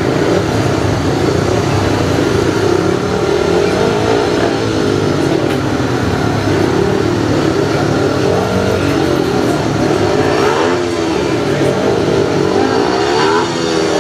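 Several speedway motorcycle engines racing together, each one's pitch rising and falling over and over as the riders accelerate and back off.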